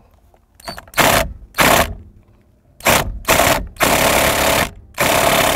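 Impact wrench hammering in six short bursts on a steering wheel centre bolt, with pauses between tries. The bolt is locked tight and does not come loose.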